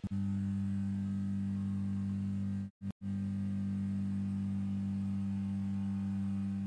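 Closing music reduced to one low note held steady, with two brief dropouts about three seconds in.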